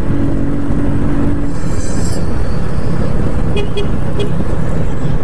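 Wind and road noise buffeting the camera microphone on a moving motorcycle. A steady horn-like tone sounds for about the first second and a half, and a few faint clicks come near the end.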